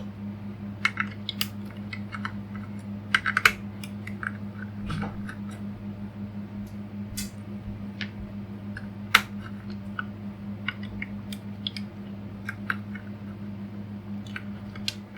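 Scattered small clicks and snips of hands working electrical wires and plastic fittings, with a few sharper clicks around three seconds in and again near nine seconds. Under them runs a steady low electric fan hum.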